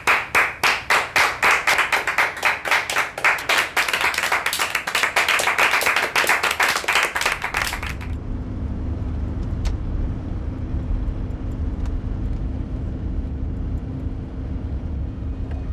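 Hand clapping at about four claps a second, growing denser, that stops abruptly about eight seconds in. It gives way to the steady low rumble of a car driving, heard from inside the cabin.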